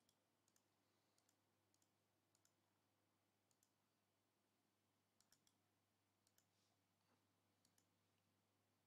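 Near silence: faint room tone with a dozen or so very faint, scattered clicks.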